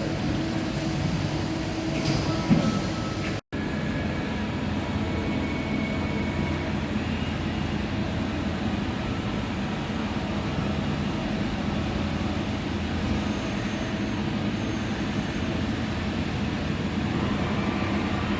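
DMG Mori Seiki DMC 125 FD universal machining centre running, a steady mechanical hum with a faint high whine. The sound drops out suddenly for a moment about three and a half seconds in.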